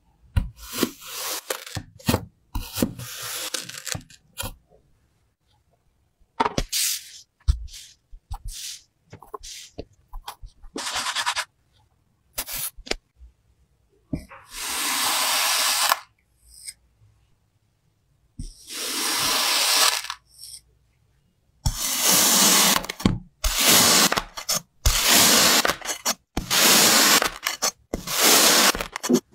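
Kinetic sand being combed and sliced with a crinkle-cut knife: a series of dry, gritty scraping and crunching strokes separated by short pauses. Some strokes last a second or two, and near the end they come about every second and a half.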